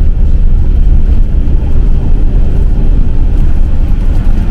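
Steady low rumble of an intercity coach on the move, heard inside the passenger cabin: engine and road noise.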